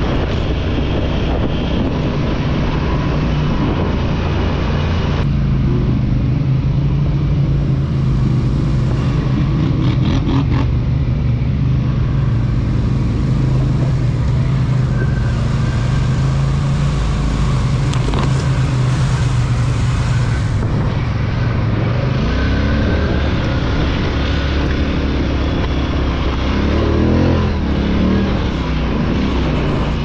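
Polaris Scrambler XP 1000 S ATV's twin-cylinder engine running at a steady speed under way, then revving up and down several times over the last several seconds.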